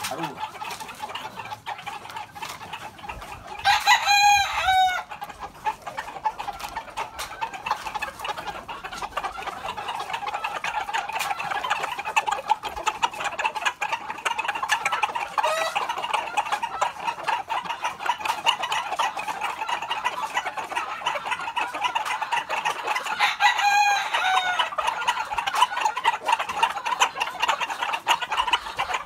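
Rooster crowing twice, about four seconds in and again about twenty seconds later, each crow short, over steady clucking and chatter of many chickens.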